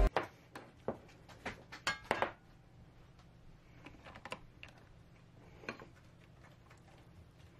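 Light clicks and taps of a plastic measuring cup scooping cauliflower rice from a ceramic bowl and tipping it into plastic meal-prep containers. A quick run of taps comes in the first couple of seconds, then a few softer scattered ones.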